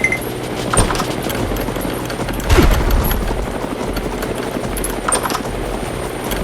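A fast, steady clatter of small ticks, with two sharp clicks about a second in and about five seconds in, and a louder thump about two and a half seconds in.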